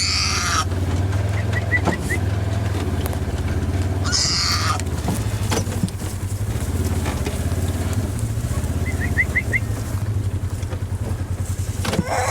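A vehicle engine running steadily at low speed. Two brief hissing bursts come at the start and about four seconds in, and two quick runs of four high chirps come about a second and a half and nine seconds in.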